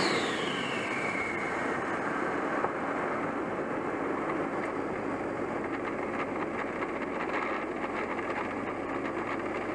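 Turbocharged Pontiac Grand Prix GTP's 3.8-litre V6 dropping back to idle after a rev: the turbo's whistle falls in pitch and dies away over the first second and a half, then the engine idles steadily. A single small click comes about two and a half seconds in.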